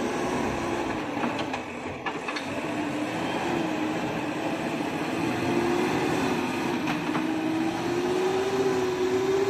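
JCB backhoe loader's diesel engine running as the machine drives with a loaded front bucket of earth; the engine note drifts slowly up and down in pitch, with a few clanks.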